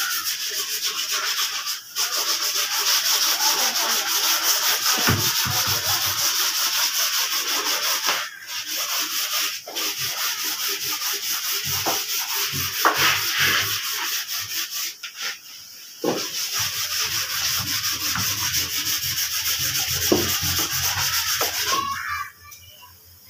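Sandpaper rubbed by hand back and forth over the wooden frame of a carved jhula (swing), a steady scratchy rasp of quick strokes with a few short pauses, dying down near the end. It is the rubbing down of the wood before polish.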